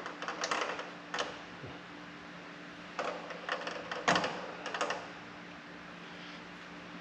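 Bursts of sharp metallic clicking and clattering, in several quick groups, over a steady low machine hum.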